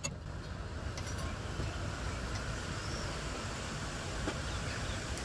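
Steady low background rumble, with a few faint short metal clicks as a hex key works the set screw on a blower bearing's locking collar.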